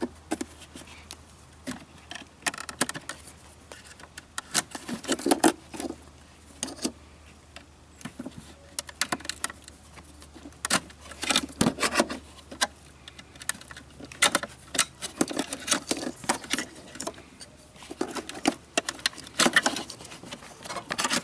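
Irregular clicks, snaps and rattles of plastic wiring-harness connectors and wires being worked loose and pulled off a BMW E46's engine control unit.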